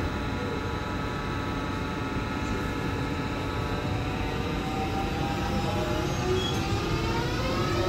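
Class 72 AnsaldoBreda electric multiple unit starting off, its traction equipment giving a chord of steady electric tones over a rumble. About five seconds in, several whining tones begin rising in pitch as it gathers speed.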